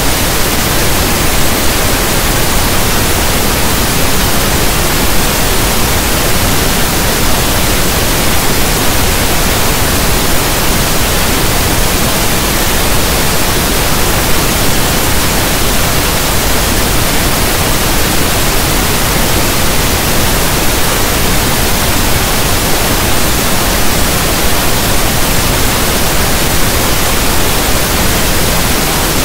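Steady synthetic pink noise: an even static hiss like a radio not tuned to a station, unchanging throughout.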